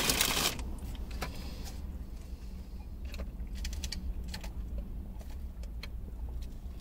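A brief rustle at the start, then scattered soft clicks and taps of a paper fast-food cup, its plastic lid and straw being handled as a drink is sipped through the straw, over a steady low rumble inside a car.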